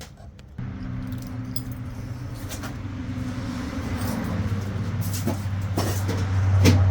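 Keys jingle, then the truck's newly fitted heater blower motor switches on with the ignition and runs with a steady hum. The hum grows louder over the last few seconds.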